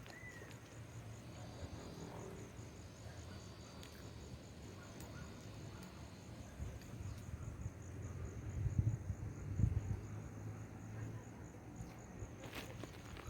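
An insect trilling steadily in a high, fast-pulsing note, under a low rumble on the microphone that swells twice a little past the middle.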